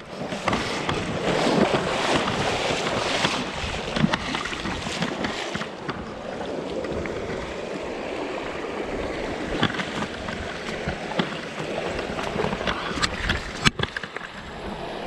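Rushing river current with wind buffeting the microphone, louder for the first few seconds, with a few short sharp clicks later on.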